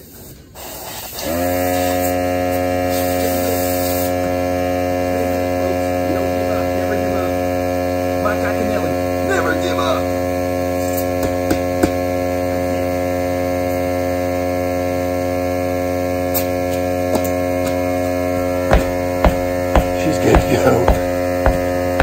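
Air compressor running steadily, pumping air through a hose into a tubeless lawn tractor tire: a constant, even hum that starts about a second in. Several sharp knocks near the end as the tire is handled.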